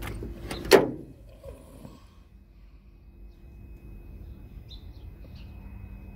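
One sharp thump about a second in, followed by a low steady hum and two brief bird chirps near the end.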